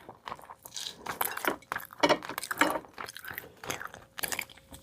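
A person biting and chewing crunchy food, an irregular run of crisp crunches.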